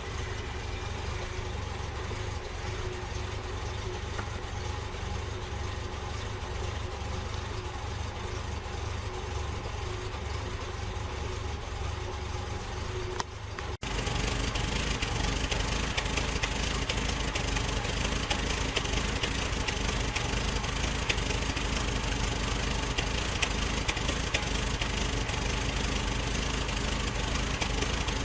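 Series 1 Jaguar XJ6's straight-six engine idling slowly and steadily from a cold start without a choke. About halfway through there is a short break, after which the running sound is louder and brighter.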